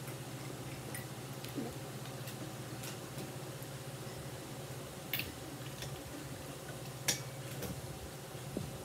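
Scattered light clicks and taps while a child eats, about half a dozen over several seconds, the sharpest two about five and seven seconds in, over a steady low hum.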